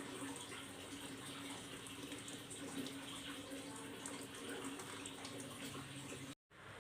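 Water running steadily from a tap, as during handwashing at a sink, with a brief dropout near the end.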